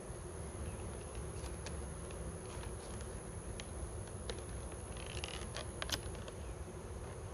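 Honeybees humming steadily around an open hive, with scattered light clicks and taps, a few of them close together about five to six seconds in.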